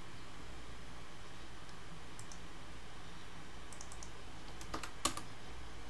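A few light clicks of a computer mouse and keyboard, the sharpest about five seconds in, over a steady low hum.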